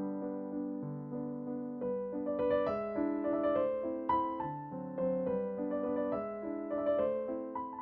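Background piano music: a melody over held lower notes.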